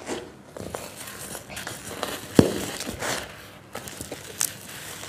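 Hand-moulded domes of dry packed yellow sand being gripped and squeezed, crunching and crumbling with irregular gritty crackles. The sharpest crack comes about two and a half seconds in.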